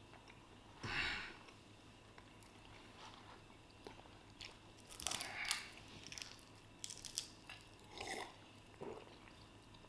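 People chewing and biting food up close: crunches, wet mouth sounds and small clicks, with a louder noisy sound about a second in and another around five seconds.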